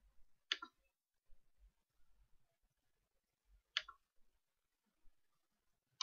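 Computer mouse clicks in near silence: two sharp single clicks, about three seconds apart, with another just at the end.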